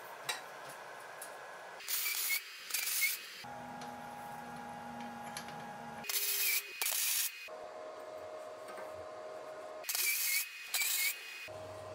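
Welder laying short tack welds on steel tubing: six brief bursts of arc noise, paired, about two, six and ten seconds in.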